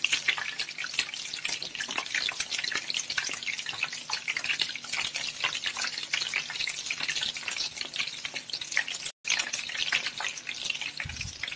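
Egg-and-milk-soaked bread slices frying in a pan of hot oil: a steady crackling sizzle of bubbling oil.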